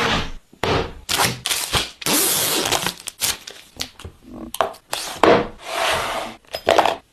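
Phone packaging being unwrapped and handled: a quick run of separate crinkling, tearing and cracking noises, with longer tearing rustles about two seconds in and again near six seconds.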